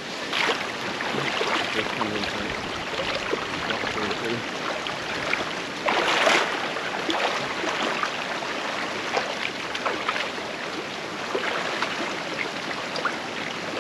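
Shallow river water splashing and sloshing as people and dogs wade and handle a pig carcass in it, with one louder splash about six seconds in.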